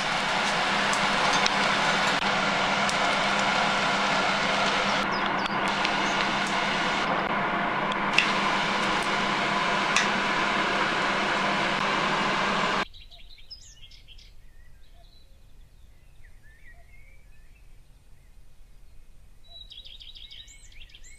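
A steady, loud rushing noise with a low hum and a few clicks, which cuts off suddenly about 13 seconds in. After that, faint birds chirping.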